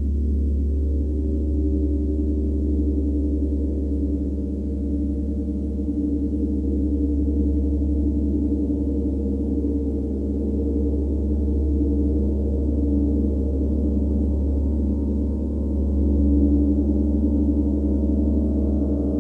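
Large tam-tam gong played continuously with a soft-headed mallet, giving a sustained, dense wash of low overlapping tones with no distinct strikes. It swells a little about seven seconds in and again near sixteen seconds.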